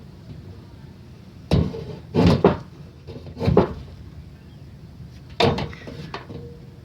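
Four knocking, scraping thuds spaced a second or two apart, from digging potatoes out of the soil and handling them.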